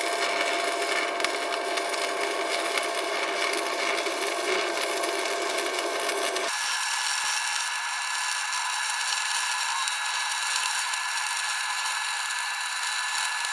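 Keygree Flux-155 inverter stick-welding arc crackling and sizzling steadily as a 3 mm electrode burns at about 100 A, a stable arc with no sticking. About halfway through, the sound switches abruptly to a thinner, higher-pitched version of the same crackle, played back sped up.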